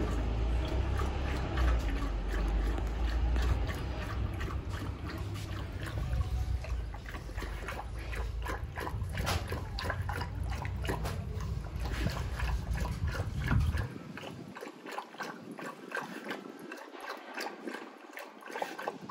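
Golden retriever lapping water from a small plastic bucket: a quick, steady run of wet laps and tongue clicks. A low rumble sits under the lapping until about two-thirds of the way through.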